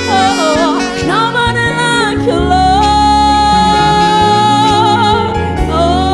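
Gospel worship singing with accompaniment: a solo voice sings an ornamented, sliding line, then holds one long note, over sustained chords.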